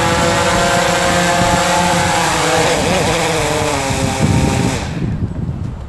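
DJI Phantom 3 Professional quadcopter's motors and propellers buzzing, dropping in pitch as it comes in to land, then winding down and stopping about five seconds in.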